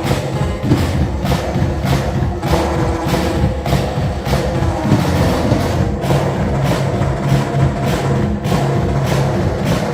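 Live band music: a steady beat of about two drum hits a second over a deep, loud bass line, with no singing.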